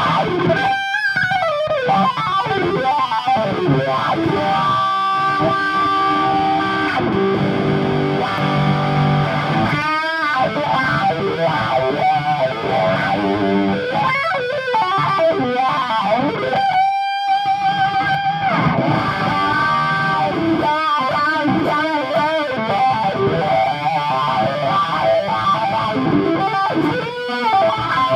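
Electric guitar played through a Dunlop Cry Baby wah pedal: single notes and chords, their tone sweeping up and down again and again as the pedal is rocked.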